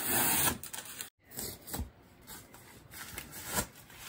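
Packing tape being ripped off a cardboard box: a loud tearing rasp in the first half second, then quieter scrapes and rubs of cardboard being handled, with a few short sharper rips.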